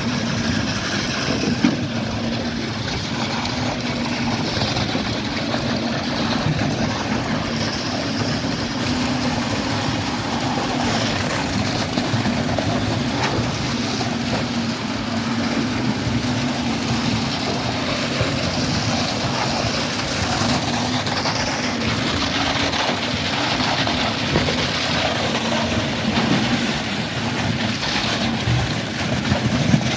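Concrete pump truck's diesel engine running steadily under load while pumping concrete through the delivery line.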